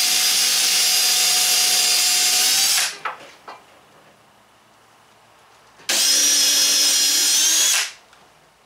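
Power drill pre-drilling holes through plywood: a steady high whine that stops about three seconds in, then a second run of about two seconds starting near the six-second mark, its pitch dropping slightly just before it stops.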